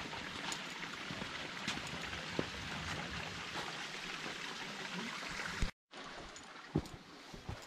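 Running water splashing and dripping: a steady rush with scattered drips and trickles. It cuts off abruptly just before six seconds in, and after that it is quieter, with a few separate knocks.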